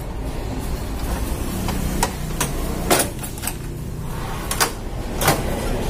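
Sharp plastic and metal clicks and knocks from the opened Canon photocopier's fuser and pull-out paper-transport drawer as they are handled and refitted, a handful of separate knocks over a low steady hum.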